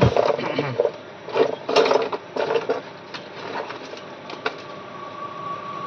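Quick clicking and rattling of small phone parts being handled and fitted during reassembly, busiest in the first three seconds, then a few separate clicks over a faint steady whine.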